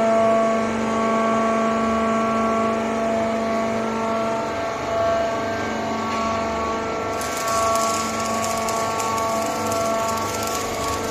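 Steady hum of machinery in a factory hall, several constant tones over a low rumble, with a high hiss joining about seven seconds in.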